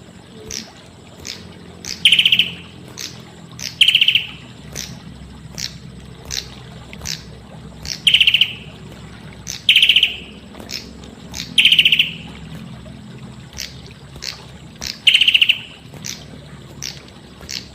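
Prenjak kepala merah calling: short sharp notes repeated every fraction of a second, broken by a loud rapid trill every couple of seconds, six trills in all.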